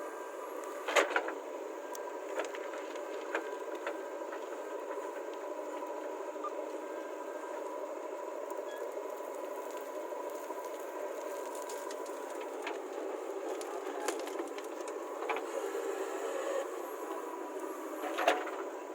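Diesel engine of earth-moving machinery running steadily, with sharp knocks about a second in and near the end, as when the bucket strikes metal or drops a load.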